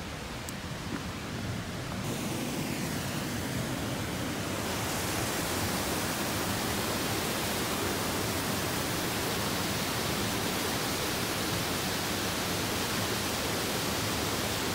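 Waterfall pouring into a pool: a steady, even rushing of water that swells in over the first few seconds.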